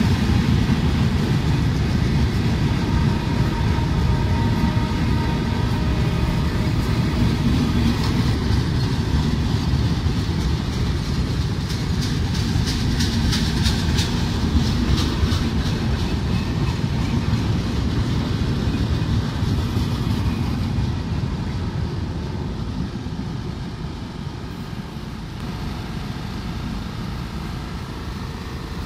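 Sundarban Express passenger train's coaches rolling past on the track, a steady rumble with wheels clicking over rail joints in the middle. The sound slowly fades over the last several seconds as the train moves away.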